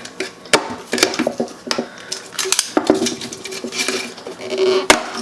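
Irregular metallic clicks and scraping of a hand tool stripping the insulation off electrical wires, with a sharp click a little before the end.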